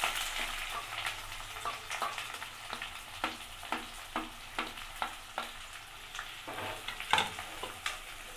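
Sliced onions sizzling as they drop into hot rice bran oil in a steel kadhai, with a spatula scraping and clicking against the steel plate and pan as they are pushed in and stirred. The sizzle starts at once and holds steady, broken by short sharp clicks, the sharpest about seven seconds in.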